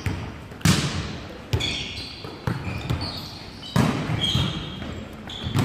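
Volleyball being struck during a rally, about five sharp hits with an echo after each, spaced roughly a second apart in a reverberant sports hall, with short high squeaks between the hits.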